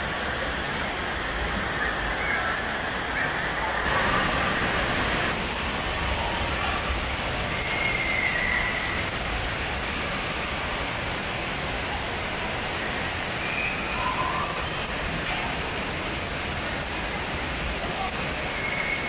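Steady rushing water and echoing hall noise of an indoor water park, from the lazy river and the water running down the slides. The hiss gets brighter about four seconds in.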